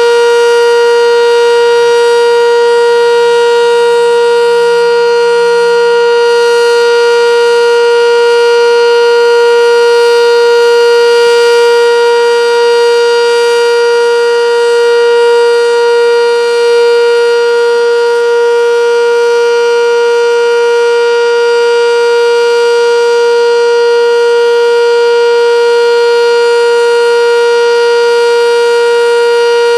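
Sentry 10V electromechanical tornado siren sounding its full-alert signal: one loud, steady tone held at full pitch, rich in overtones, with no rise or fall.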